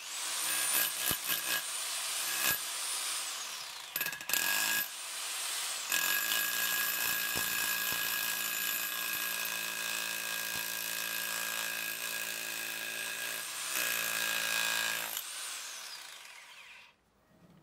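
TOTAL TH115326 1500 W SDS-plus rotary hammer running in chisel mode, its flat chisel hammering into rock and breaking it apart. It pauses briefly a few times in the first six seconds, then the trigger is released and the motor winds down with a falling pitch near the end.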